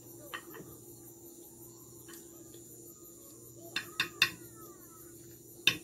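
Close-up eating sounds: a few short, sharp clicks and smacks of mouth and chopsticks as fried chicken and noodles are eaten, with a quick cluster of three about four seconds in and a single one near the end, over a faint steady hum.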